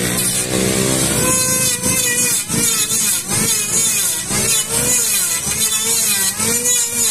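Handheld electric planer running and shaving a wooden board, a hissing cut over the motor's whine, its pitch wavering up and down as it is pushed along the wood.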